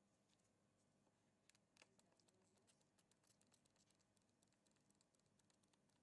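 Near silence, with a run of faint clicks and ticks about one and a half to four seconds in from a trigger spray bottle squirting liquid onto the top of a freshly poured polyacrylamide gel between glass plates.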